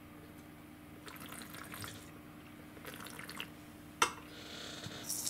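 Wine-tasting mouth sounds: Riesling slurped with air drawn through it in the mouth, twice in short hissing pulls. About four seconds in comes a sharp knock, the loudest sound, followed by a short liquid hiss.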